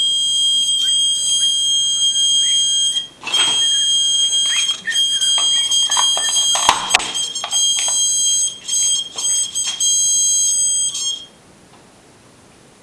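High-pitched electronic alarm buzzer tone from a motion-detector test, held steady with a few short breaks and faint clicks. It cuts off sharply about eleven seconds in, leaving a steady hiss.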